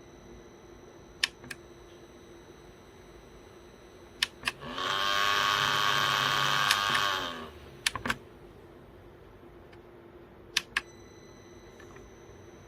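Smart fan under test: paired clicks as its controls switch, then its motor spins up, runs loudly for close to three seconds, and winds down, its pitch rising at the start and falling at the end. A faint steady hum and a high whine run underneath.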